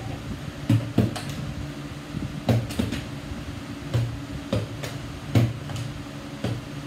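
Partly filled plastic water bottles being flipped and landing on a table-tennis table: a string of short thuds, about nine in all, mostly in pairs a fraction of a second apart.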